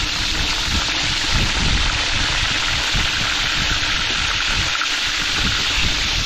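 Fish frying in hot oil: a steady, even sizzle, with an irregular low rumble underneath.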